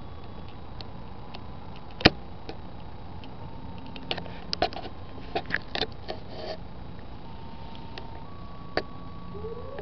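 Steady outdoor background noise with scattered clicks and knocks, the sharpest about two seconds in. Near the end a lahar warning siren begins to wind up, a single rising tone.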